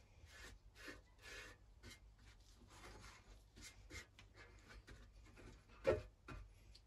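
A paintbrush dabbing and stroking paint stripper onto the painted metal case of an Optimus 111 stove: faint, irregular scratchy brush strokes. A light knock comes near the end.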